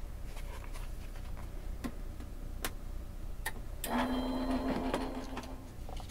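A few sharp clicks of cutting plates being handled, then an electric die-cutting machine running for under two seconds with a steady motor hum as it presses the die and card through.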